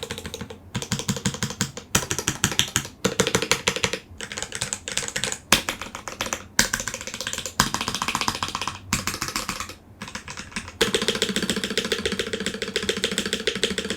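Typing on a Blade65 aluminum gasket-mount 65% mechanical keyboard fitted with Gateron Ink Black linear switches and GMK double-shot ABS keycaps. Fast runs of keystrokes, broken by short pauses every second or two.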